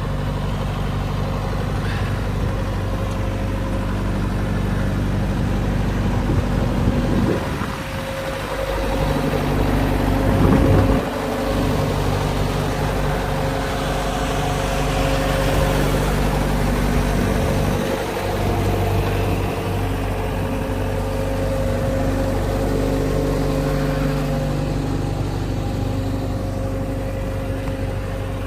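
Bobcat S160 skid steer's diesel engine running steadily. Its note shifts for a few seconds, dipping and then rising, from about 7 to 11 seconds in.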